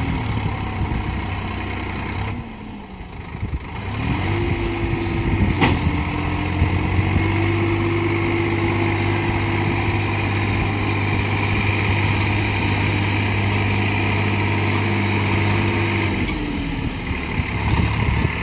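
Sonalika DI 745 III Sikandar tractor's diesel engine pulling a loaded trolley out of a soft field. The engine speed dips about two seconds in, rises a little before four seconds and holds steady for about twelve seconds, then drops back near the end.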